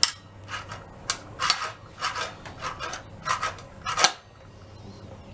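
Sharp clicks and scrapes from handling and adjusting a circular saw's metal parts, the loudest near the start, about a second and a half in and about four seconds in.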